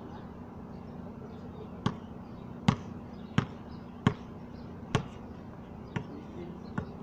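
A basketball being dribbled on a concrete court: seven bounces a little under a second apart, starting about two seconds in.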